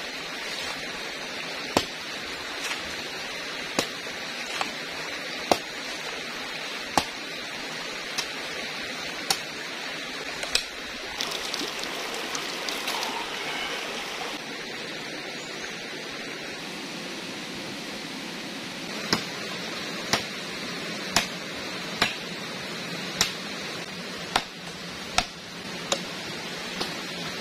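Machete chops, about one every second and a half, splitting a green coconut and later cutting into a banana stem, over the steady rush of a stream.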